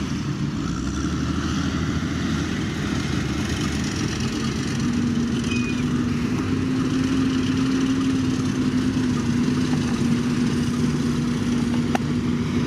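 Heavy diesel engine of earth-moving machinery running under load, a steady drone that grows a little louder about five seconds in and then holds.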